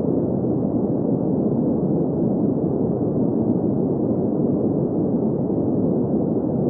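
Steady green noise: an even, unchanging hiss with its energy in the middle range and nothing in the highs.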